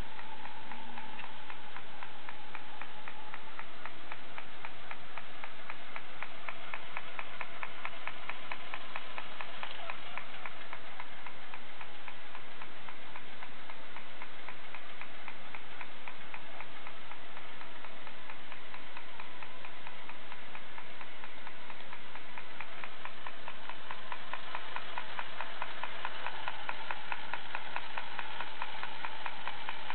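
Yonezawa tin toy helicopter's mechanism running as it drives its spinning rotor: a rapid, even clicking with a faint whirr.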